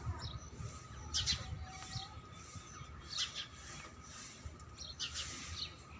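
Birds chirping: short, high chirps about once a second, over a faint steady hum.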